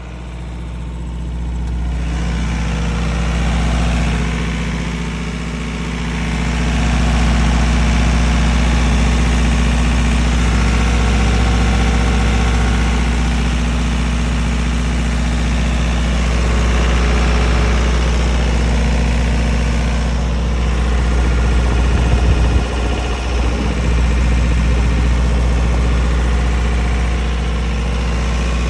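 Diesel engine of a 35 kW generator set running steadily. It grows louder over the first several seconds, then holds an even, unchanging note, with a brief low rumble about three quarters of the way through.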